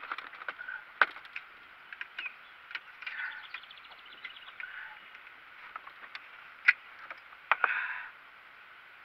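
Scattered knocks, clicks and rattles of a landing net and a hanging spring scale being handled in a small boat to weigh a caught channel catfish. The sharpest knocks come about a second in and twice near seven seconds, with a brief scraping rustle just after and a quick run of ticks around three seconds.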